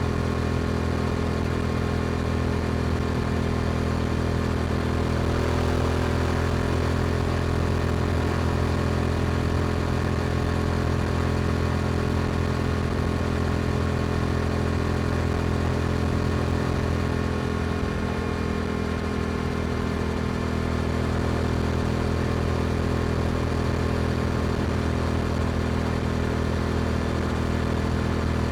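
Yamaha R7's parallel-twin engine through an Akrapovic exhaust, running at a steady cruising speed with an even, unchanging note that eases slightly about two-thirds of the way through.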